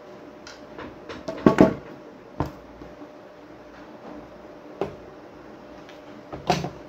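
Knocks and clatter of a car amplifier's finned aluminium heatsink casing being set down and handled on a tabletop: a loud double knock about a second and a half in, then single knocks near two and a half, five and six and a half seconds.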